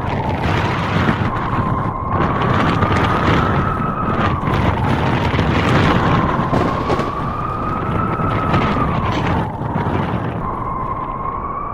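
Strong blizzard wind blowing: a dense rushing noise with a whistling howl that slowly rises and falls in pitch.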